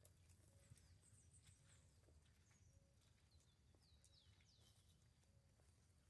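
Near silence: a faint low hum with scattered faint clicks and a few faint high chirps.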